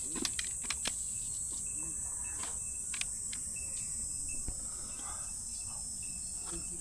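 Steady high-pitched drone of summer insects, with a few small sharp clicks scattered through it.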